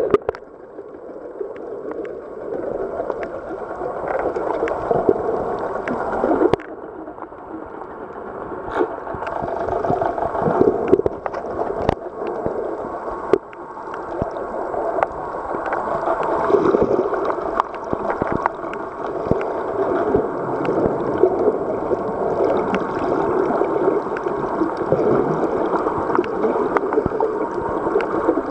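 Underwater sound picked up by a camera swimming among dolphins: a steady muffled rush of water with scattered sharp clicks. The sound changes abruptly twice, about six and thirteen seconds in.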